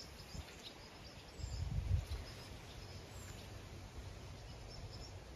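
Quiet rural ambience: faint, scattered high bird chirps, with a brief low rumble about one and a half to two seconds in.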